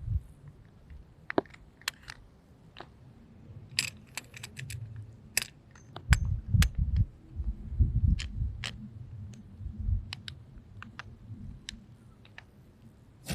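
Scattered light metal clicks and clinks as a wheel-type pipe cutter is handled and set onto well pipe, with a run of dull bumps about halfway through.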